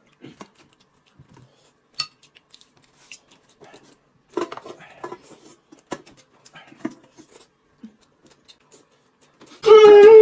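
Light clicks and clinks of chopsticks against porcelain plates and bowls while eating, sparse and quiet. Near the end a loud, drawn-out "mmm" of relish.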